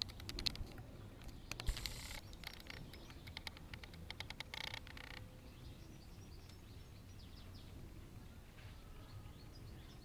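Open-air ambience with faint bird chirps in the second half. A run of clicks and crackles, with two short noisy bursts, fills the first half.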